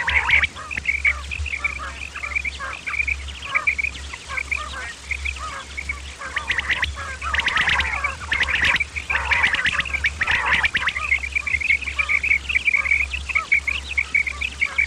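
Quail calling: a continuous run of short, quick, high notes repeated many times a second, with denser clusters of calls partway through, over a steady low hum.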